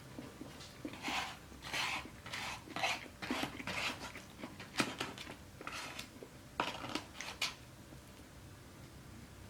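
Close-miked chewing of crunchy fast food: about a dozen short crunches roughly every half second, stopping a couple of seconds before the end.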